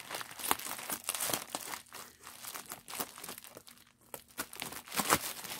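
Plastic bubble wrap crinkling and crackling as it is handled and unwrapped, in a quick irregular run of small crackles that dies down briefly a little past the middle and then resumes.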